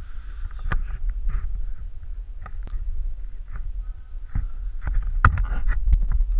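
Slackline being bounced on: a steady low rumble with irregular knocks and rattles, picked up by a camera riding on the line. The knocks come thicker and louder a little after halfway.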